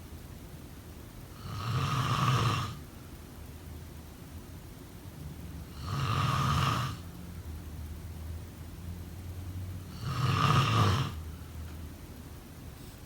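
A sleeping person snoring: three loud snores, each about a second long, coming about every four seconds, with quiet gaps between them.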